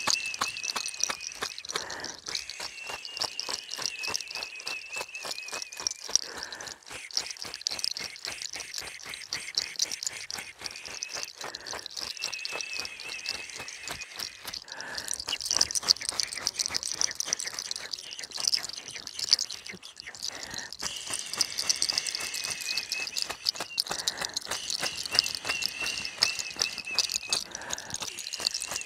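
Leafy bundle of fresh herbs brushed and shaken over a person's head and shoulders, the leaves rustling and crackling in a dense, irregular patter. A thin, wavering high whistling tone carries on in the background in stretches of a few seconds, with short breaks.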